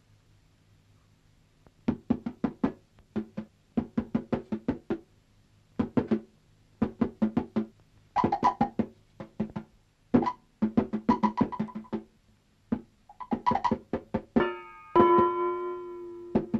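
Cartoon score of quick, short staccato notes played in brisk runs with brief pauses, starting about two seconds in. Near the end a ringing tone of several pitches sounds and slowly fades.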